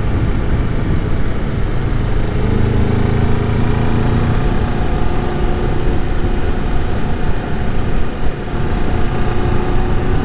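2017 Kawasaki Ninja 400's parallel-twin engine running while the bike is ridden, its note shifting in pitch, over a steady rush of wind and road noise.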